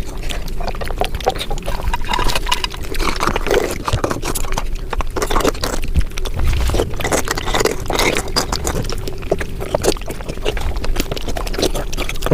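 Mukbang eating sounds sped up five times: rapid chewing, smacking and slurping that run together into a dense stream of wet clicks.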